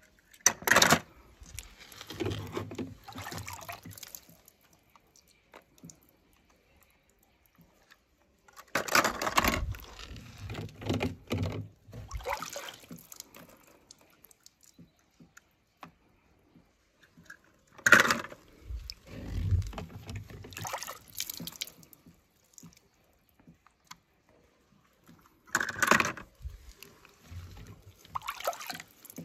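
Small die-cast toy cars splashing into a water-filled tub and water sloshing as a hand moves in it to fish them out. This happens four times, each round starting with a sharp splash.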